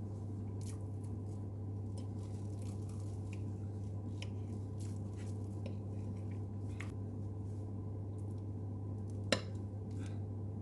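Light clicks and taps of cutlery on a plate, with one sharper click about nine seconds in, over a steady low hum.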